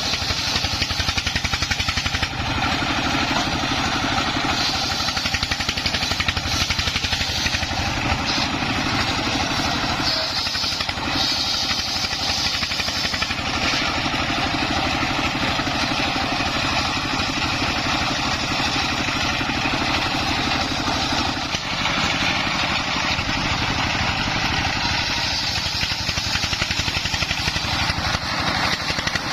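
Single-cylinder Dongfeng 24 hp diesel engine running steadily under load, driving a homemade circular saw rig, with a brighter hiss from the blade that swells and eases over the half-minute.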